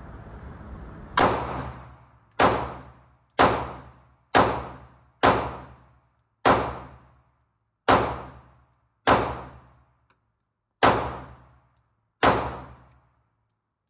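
Ten 9mm pistol shots from a Glock 19X in slow, aimed fire, spaced about one to two seconds apart. Each is a sharp crack with a short echoing decay.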